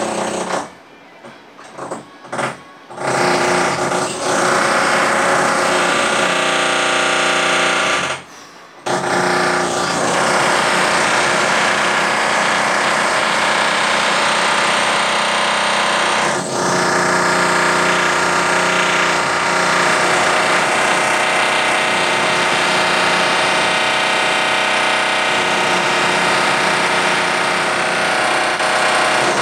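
Loud power-tool drilling from a house renovation next door, running almost without pause; it stops briefly several times in the first three seconds and once about eight seconds in.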